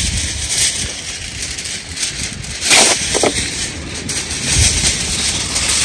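Wind rumbling on the microphone outdoors, with a short burst of noise about three seconds in.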